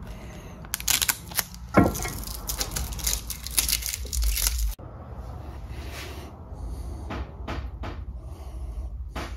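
Kapton tape peeled off its roll in a desktop tape dispenser: a crackling, tearing sound with a sharp loudest moment about two seconds in. About halfway through it cuts to quieter handling with a few light clicks.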